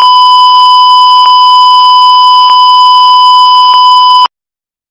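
Steady 1 kHz line-up test tone, the reference tone that accompanies colour bars, held at one unchanging pitch and very loud. It cuts off abruptly about four seconds in.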